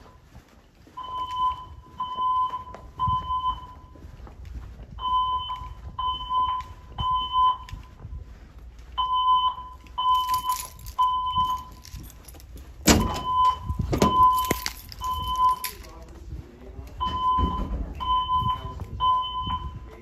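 Silent Knight voice evacuation system speakers sounding a fire alarm evacuation tone: a steady beep in the temporal-three pattern, three short beeps and a pause, repeating. Partway through there is a jangling rattle and two loud knocks.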